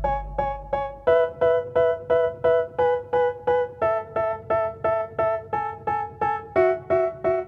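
Background music: an electric-piano-like keyboard playing short repeated chords, about four a second, with the chord changing twice, in the instrumental break of a hip hop track.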